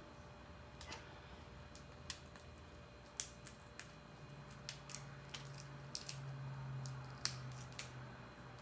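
Cooked Dungeness crab shell being cracked and snapped apart to get at the meat: a dozen or so sharp, irregular clicks and snaps. A low steady hum runs through the second half.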